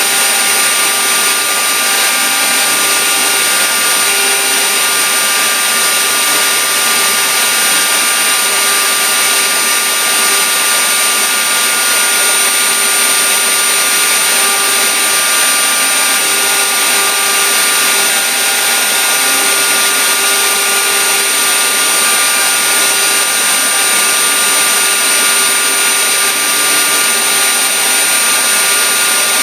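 CNC router spindle running steadily with a high whine while its bit cuts pockets into a bark-covered log.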